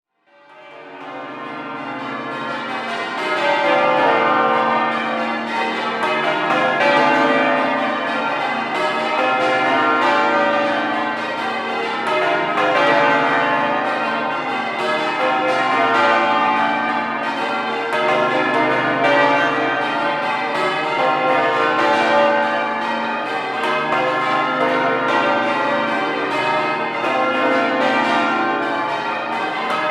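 Change ringing on Exeter Cathedral's ring of twelve tower bells, the bells striking one after another in rapid, continuous rounds and overlapping as they ring on. The sound fades in over the first few seconds.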